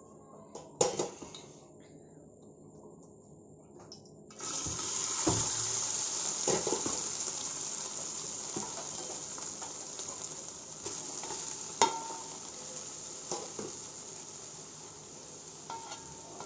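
Par-boiled rice dropped into hot desi ghee in a large metal pot: a sizzle starts suddenly about four seconds in and slowly fades, with several sharp knocks against the pot as the rice is spread.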